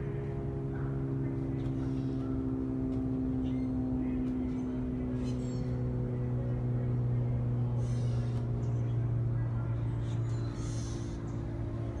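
Steady low engine drone, its pitch sinking slightly through the middle.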